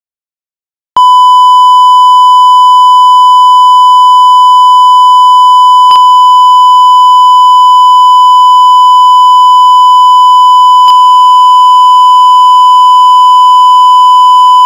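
Loud, steady censor bleep: a single unbroken high beep tone that starts about a second in, laid over a voice message so that its swearing is blanked out.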